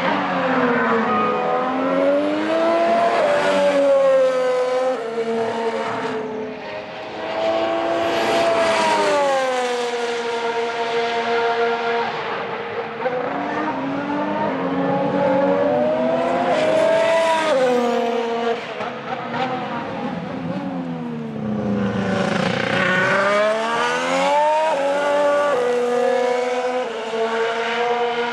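Formula 1 cars with Honda RA619H 1.6-litre turbocharged V6 engines running at high revs past the track. The engine pitch climbs and falls with gear changes, stepping down in quick downshifts. It drops each time a car goes by, which happens several times.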